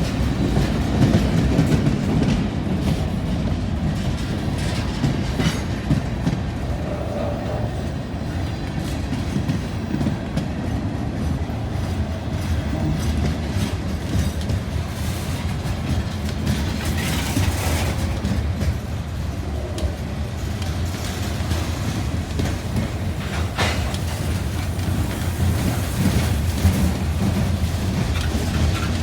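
Freight cars of a CSX train rolling past in a steady low rumble, wheels clicking over the rail joints.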